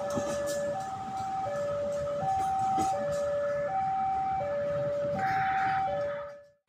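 Railway level-crossing alarm sounding its alternating two-tone warning, a high note and a low note of about three-quarters of a second each, over the rumble of a passenger train passing through the crossing. It fades out near the end.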